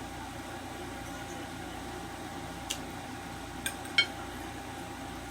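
A few light clinks of cutlery against a dish while eating, the loudest near the end with a short ring, over a steady low hum.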